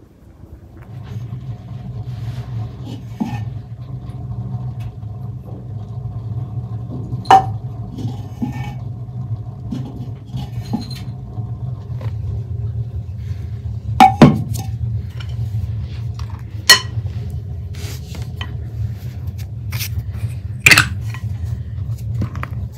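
Metal cookware and utensils clanking and clinking now and then, a few sharp knocks standing out, over a steady low hum that starts about a second in.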